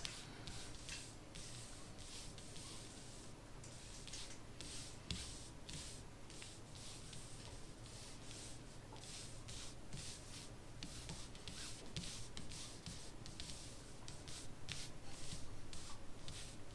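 Square cardboard game cards being slid about on a cloth-covered table by several hands at once: quiet, irregular soft rubbing strokes, a few a second, getting a little busier near the end.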